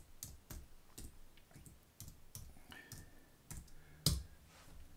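Computer keyboard keys clicking as a word is typed: separate keystrokes at an uneven pace, with one louder click about four seconds in.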